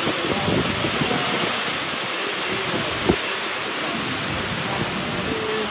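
Heavy rain pouring down, a steady loud hiss, with one short sharp knock about three seconds in.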